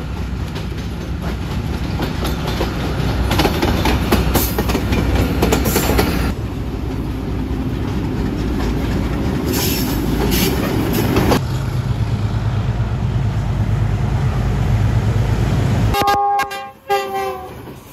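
Passing trains: a loud, steady rumble of locomotive and wheels on rail, changing abruptly twice where shots are cut together. About 16 seconds in, a train horn sounds briefly and the rumble drops away.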